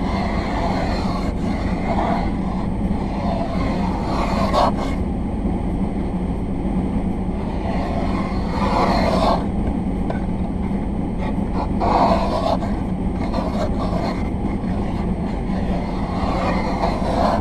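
Automatic car wash running over a stationary car, heard from inside: a steady mechanical rumble with swishing surges of spray or brushes every few seconds.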